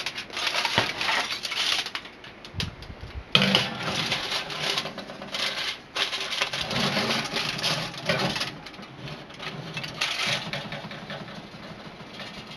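Aluminium foil crinkling and rustling in several bursts as a hand folds and tucks it.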